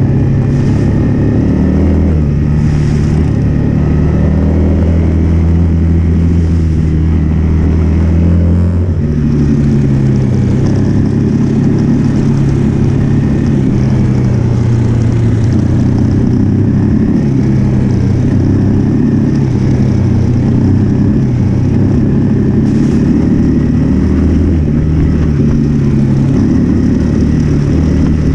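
Single-cylinder trail bike engine running under way, heard from the bike itself. The engine note rises and falls with the throttle, with a clear shift in pitch about nine seconds in.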